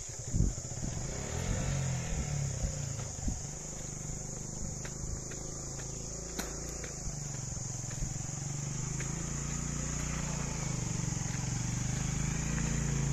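Motorcycle engine running at low revs, growing steadily louder toward the end, with a steady high insect buzz behind it. A sharp knock about half a second in, and a few small clicks from footsteps on the rough track.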